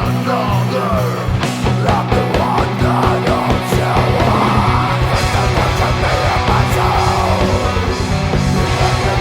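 Heavy metal band playing: distorted guitars, bass guitar and drums with a wavering lead guitar line. About five seconds in, the drums switch to a rapid, even kick-drum pulse.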